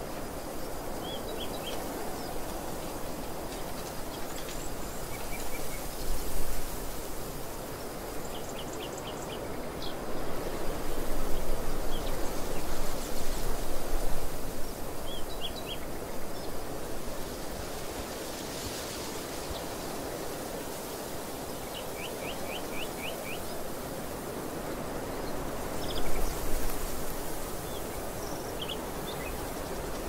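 Steady wind across an open field of barley, rising in gusts a few times, with small birds chirping in short rapid trills now and then.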